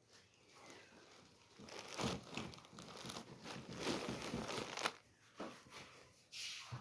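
Bedding rustling and crinkling as a restless sleeper shifts in bed, in irregular scrunching stretches from about a second and a half to five seconds in, with a short pause and more rustling near the end.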